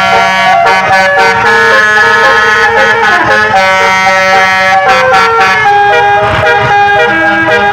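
Bus 'telolet' (basuri) multi-tone musical horn playing a tune, its loud horn notes stepping up and down in pitch, with a steady low drone under the first few seconds.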